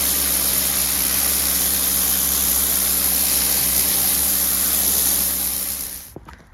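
Bosch UniversalAquatak 135 electric pressure washer running: a steady motor hum under a loud hiss of water spray. It winds down and stops near the end.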